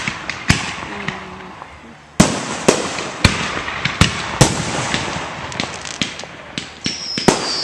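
Aerial fireworks shells bursting overhead: a string of sharp bangs, the loudest about two seconds in, each trailing off into crackle and rumble. Near the end a high, slowly falling whistle starts.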